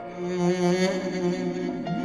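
Slow instrumental music from a Turkish slow song, with long held string-like notes and no singing.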